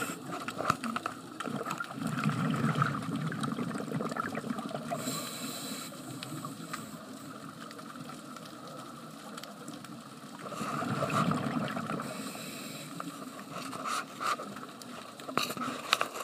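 Scuba diver's regulator breathing heard underwater: a hiss on each slow inhalation and a rumbling gurgle of exhaled bubbles, a few breaths several seconds apart, with scattered sharp clicks near the end.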